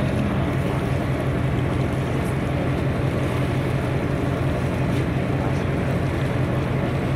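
Glass-bottom tour boat's engine running steadily with the boat underway, a constant low drone with a rush of wind and water over it.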